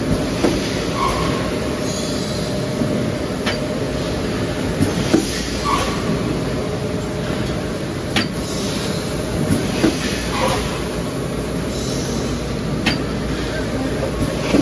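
Three-station thermoforming machine running: a steady mechanical hum with a constant tone, broken by sharp clacks and short hisses that repeat about every five seconds.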